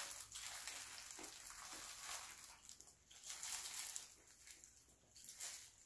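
Faint crinkling and rustling of a disposable plastic glove handling food in a pan, in soft, irregular bursts.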